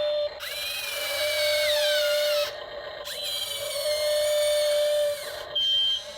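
Small electric motors of a radio-controlled excavator whining in runs of about two seconds, the pitch gliding as they speed up and slow down, with short pauses between runs and a brief higher-pitched burst near the end.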